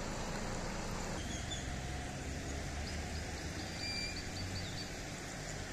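Floodwater rushing over a submerged low-lying bridge, a steady wash that drops to a quieter river sound about a second in. A bird calls a quick run of high chirps around the middle.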